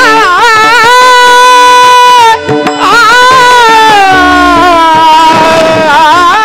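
Marathi kirtan singing: one voice holding long, drawn-out notes with wavering ornaments over instrumental accompaniment, with a brief breath about two and a half seconds in.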